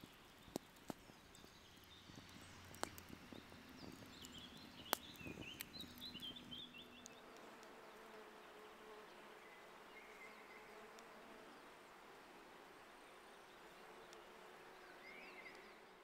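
Faint buzzing of a flying insect, with a few sharp clicks in the first five seconds and some short high chirps around the middle.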